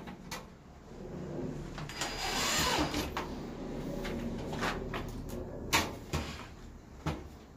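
Clattering and knocking of galvanised steel ceiling channels and a plasterboard hatch being handled on a wooden workbench, with a longer scraping, rustling stretch about two seconds in and several sharp clicks near the end.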